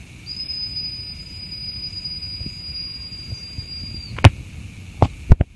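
A single long, steady, high-pitched whistle note held for about four seconds, then a few sharp knocks near the end.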